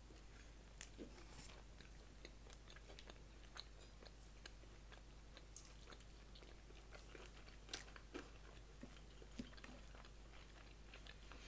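Faint eating sounds: a person chewing and biting food, heard as scattered soft clicks and crunches, the clearest about a second in and near eight seconds in.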